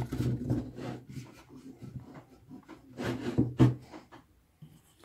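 A hand rubbing over a carved, stained wood surface: scratchy rubbing strokes in two spells, the second, about three seconds in, the louder.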